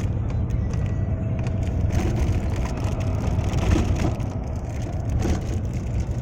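A moving road vehicle's steady low rumble, with scattered crackling and clicking over it.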